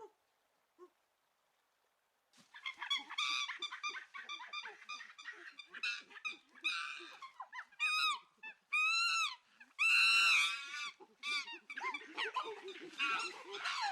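A flock of geese honking: many short, pitched calls overlapping in a rapid run that begins a couple of seconds in, with a few longer arching honks standing out near the middle.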